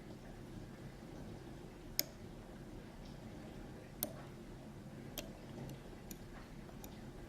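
Faint, scattered metallic clicks of a pick and tension wrench working in an Ezcurra 6-pin dimple euro cylinder, with sharper single clicks about two and four seconds in and a few smaller ones later.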